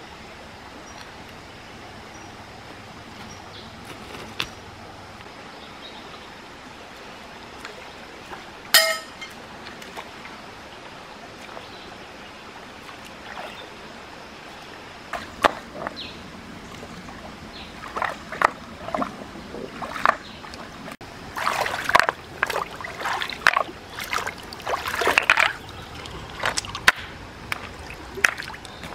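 Shallow rocky stream trickling steadily, with one sharp knock about a third of the way in. From about halfway, water splashes and stones clack together in quick irregular clusters as hands shift rocks on the stream bed.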